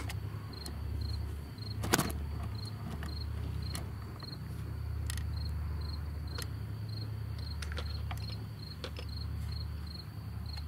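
A cricket chirping in a steady rhythm of short, high chirps all at one pitch. A few sharp clicks come over it, the loudest about two seconds in.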